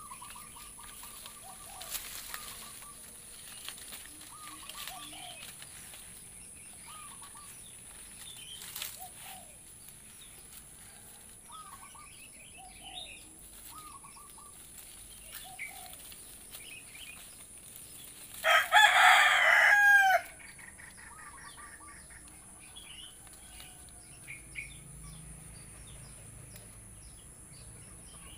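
A rooster crows once, loud and drawn out for about a second and a half, about two-thirds of the way in, over scattered short, faint chirps.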